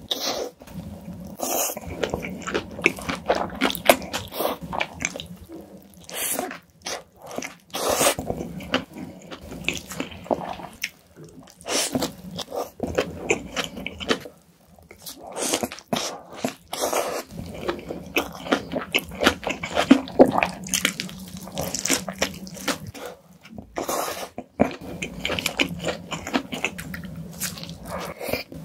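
Close-miked eating sounds: a burger being bitten and chewed, with irregular crunches and mouth clicks and smacks throughout.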